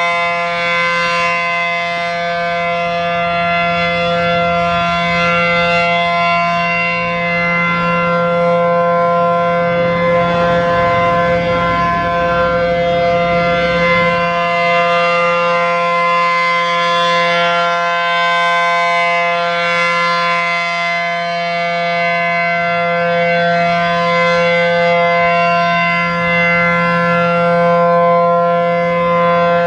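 A.C.A. P-10 outdoor warning siren sounding the Full Alert signal: a loud, steady tone held at one unchanging pitch, as in a steady alert test.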